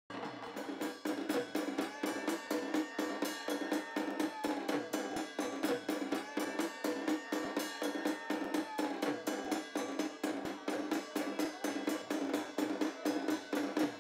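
Dhol drumming: a fast, even beat that runs on without a break, the accompaniment to lathi khela stick fighting. A higher tone sweeps up and down over it a couple of times.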